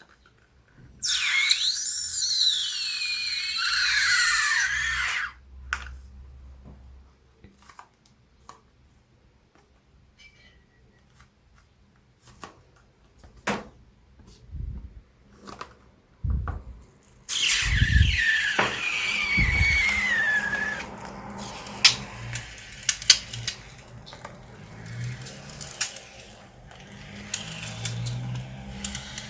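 Air squealing out of a stretched balloon neck, twice: a loud, high squeal that wavers up and down in pitch and then stops suddenly, and later a second squeal that falls in pitch. Between them come small clicks and handling noises.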